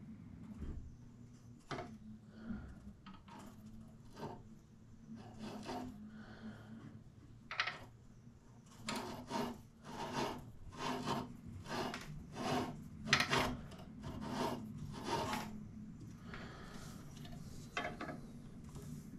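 A hand rubbing back and forth along a turned wooden spindle on the lathe: a run of dry scraping strokes, about two a second and loudest in the middle, over a low steady hum.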